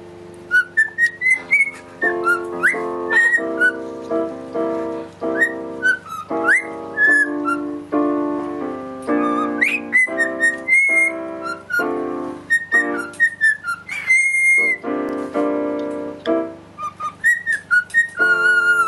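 Cockatiel whistling a tune with short upward slides, along with a piano played in chords.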